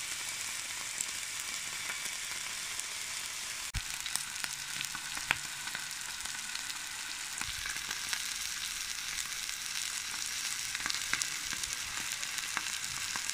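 Marinated wagyu picanha searing on a hot plancha, sizzling in its own olive-oil and garlic marinade with no added oil. The sizzle is a steady high hiss with scattered small pops and crackles.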